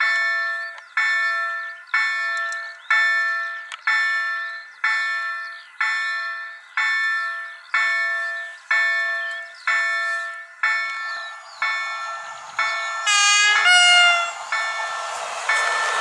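Bombardier level crossing warning bell striking about once a second, each strike ringing and dying away, with birds chirping faintly. About thirteen seconds in, the approaching EP09 electric locomotive sounds a short horn blast whose pitch bends. Near the end the rushing noise of the oncoming train rises.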